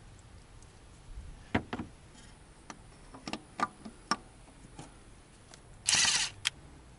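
Scattered small metallic clicks and taps as the fuel plate and its screws are handled and fitted on a Bosch P7100 injection pump, with a brief scraping noise a little before the end.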